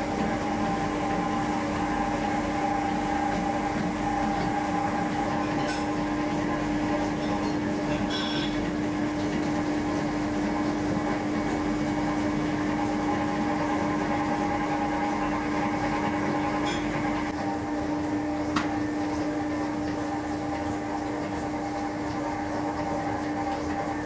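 Steady mechanical hum of bakery machinery, an unchanging drone with a constant low tone, and a few faint clicks over it.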